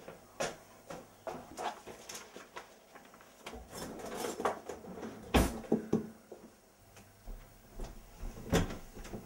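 A kitchen cutlery drawer pulled open and something shoved in among the cutlery, with scattered clattering clicks and knocks. The loudest knock comes about halfway through and another strong one near the end.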